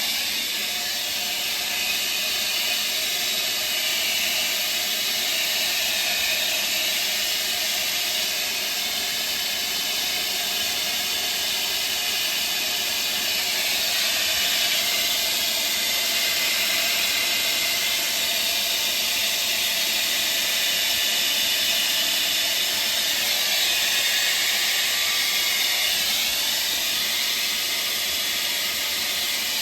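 Hair dryer running steadily, a continuous airy hiss of blown air.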